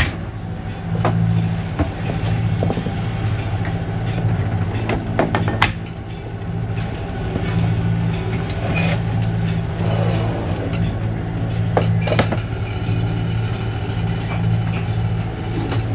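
Sailing yacht's engine running at a steady drone, with a few scattered sharp clicks and knocks over it.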